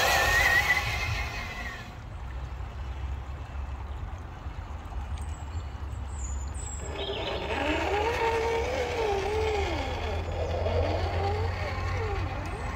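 Electric whine of the Traxxas TRX-4's brushed Titan 550 motor and geared drivetrain. It rises and falls in pitch several times from about seven seconds in, as the throttle is fed on and off while the RC crawler picks its way along a log. Before that there is a louder rush of noise in the first second or two.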